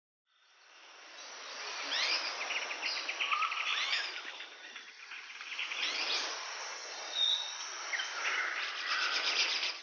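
Outdoor nature ambience of small birds chirping, with quick rising calls, and a rapid insect-like clicking trill. It fades in over the first couple of seconds and cuts off abruptly at the end.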